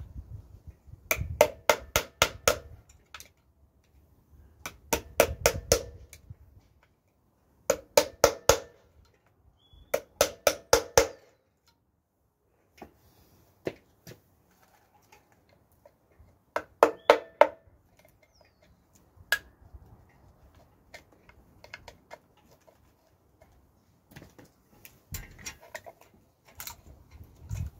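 Hammer striking a steel tool held against the rear of a BMW N47 diesel engine block. The metallic blows come in five quick runs of five to seven strikes with pauses between, plus a few single taps.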